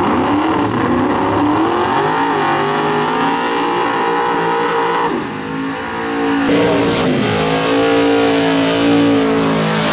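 Nitrous big-block Fox-body Mustang's V8 revving up and held at high revs through a burnout, easing off about five seconds in. Then a different engine, a turbocharged old Ford pickup's, starts suddenly, held at high revs through its own burnout and dropping near the end.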